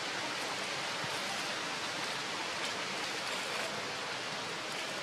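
Steady, even hiss of outdoor background noise, with no distinct calls or knocks.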